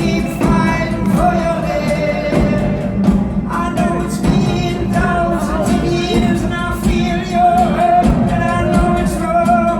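Live band music with a steady percussive beat under sustained melodic lines.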